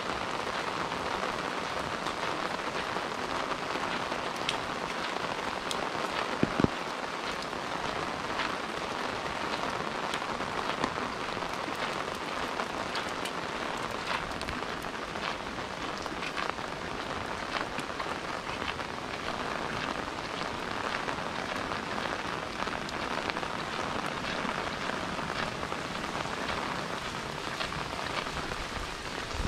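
Steady rain falling, an even hiss with scattered sharper drop ticks and one louder tap about six and a half seconds in.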